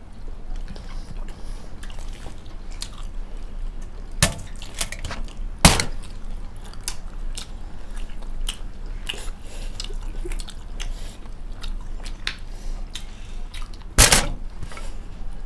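People chewing steamed chicken momos close to the microphone: a steady run of small wet mouth clicks and smacks, with three sharper clicks about four, five and a half, and fourteen seconds in.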